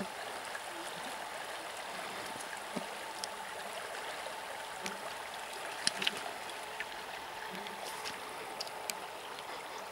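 Shallow river running over a stony riffle: a steady rushing ripple, with a few faint clicks about six seconds in.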